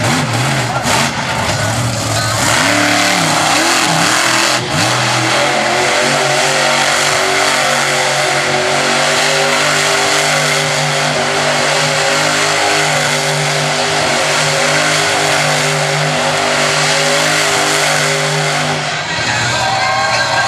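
Monster truck's V8 engine revving hard, its pitch swinging up and down for the first few seconds, with a thud about four and a half seconds in. Then it is held at high revs while the truck spins donuts in the dirt, easing off near the end.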